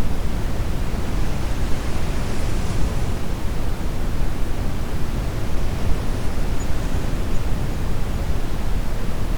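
Brown noise mixed with ocean waves: a steady, deep rushing hiss, heaviest in the low end, with a soft surge of brighter wash about two to three seconds in.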